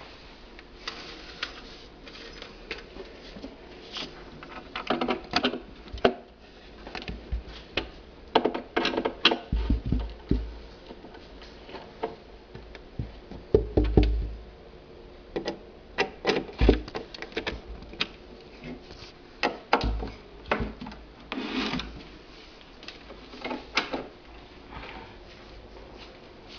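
Irregular clicks, knocks and clatter of table parts and metal fittings being handled as pegs are fitted and screwed into a flat-pack table, with a few heavier low thumps.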